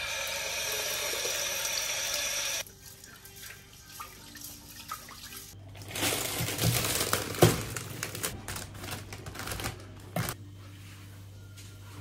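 Kitchen tap running into a rice cooker's inner pot as rice is rinsed, cut off suddenly after about two and a half seconds. A few seconds later a plastic bag of frozen vegetables crinkles as it is handled, over a low steady hum.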